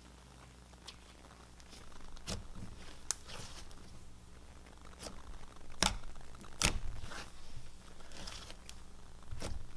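Thick cloud-dough slime being stretched, pulled apart and squeezed by hand: soft tearing and crackling with scattered sticky pops, starting about two seconds in.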